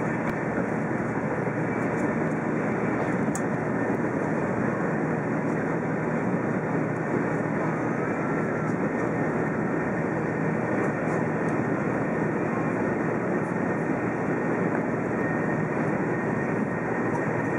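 Steady running noise of a Shinkansen bullet train at speed, heard inside the passenger car: an even rumble that holds level without breaks.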